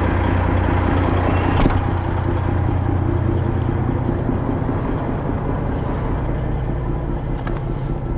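Semi truck's diesel engine idling steadily, with a single sharp knock about a second and a half in.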